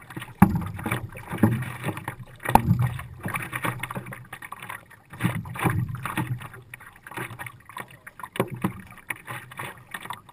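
Water sloshing and slapping against a stand-up paddleboard's hull, with irregular splashes from the paddle strokes, heard close at the waterline. A couple of sharp knocks stand out, the loudest about half a second in and another near two and a half seconds.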